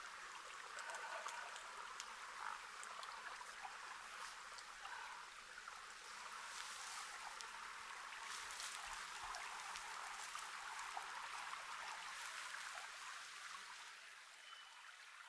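Faint, steady outdoor ambience: a soft rushing like a distant stream, with scattered small ticks and crackles. It fades a little near the end.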